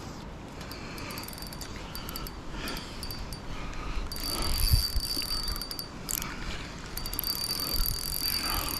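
Spinning fishing reel working against a hooked carp: a high whirring whine with rapid ratchet-like clicking, in two main stretches about four seconds in and again near the end, with fainter clicks earlier.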